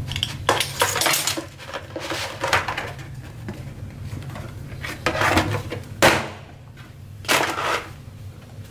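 Utility knife scoring a black Kydex plastic sheet along a metal ruler, a few short scraping strokes, then the stiff sheet being lifted and handled, with one sharp click about six seconds in. A steady low hum runs underneath.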